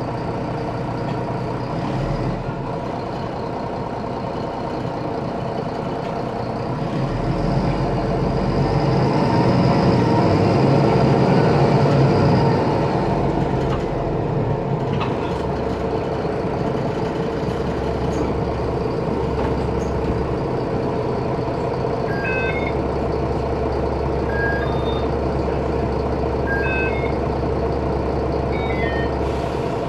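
Mercedes-Benz Citaro O530 bus's OM906LA six-cylinder turbo diesel running, growing louder from about seven seconds in and easing back after about thirteen, with a high whistle from the turbocharger over that stretch, a turbo the owner calls faulty. Short high beeps come repeatedly in the last several seconds.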